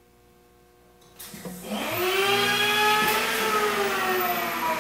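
Electric drive motor of the shaper's powered fence adjustment running to set the outfeed fence a millimetre deeper: a whine that starts about a second in, rises in pitch, then slowly eases down.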